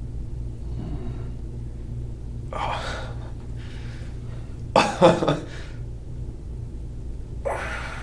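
A man's pained breathing: a hissing breath about two and a half seconds in, a louder strained gasp with a short voiced groan about five seconds in, and another heavy breath near the end, his reaction to deep pressure worked into the muscle under his arm.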